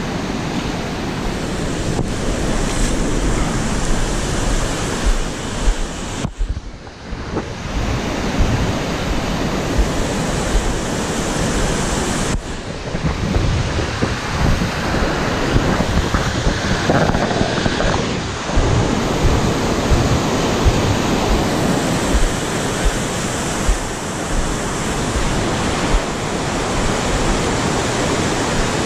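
Chatooga River white water rushing down cascades over granite bedrock, a loud steady roar, with wind buffeting the microphone in low gusts. The sound dips briefly about six seconds in.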